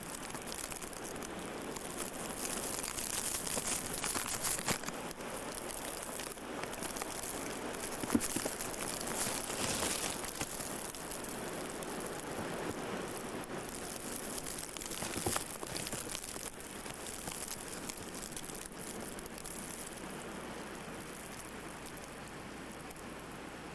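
Blizzard wind gusting, with a steady hiss of blowing snow and a few scattered knocks and crunches. It swells and eases, dropping a little lower near the end.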